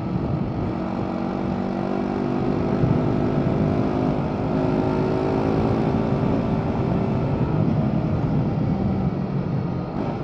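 BMW G 310 R's single-cylinder engine through its stock exhaust, pulling steadily at road speed. It grows louder over the first few seconds as the throttle opens, holds steady, then eases off near the end.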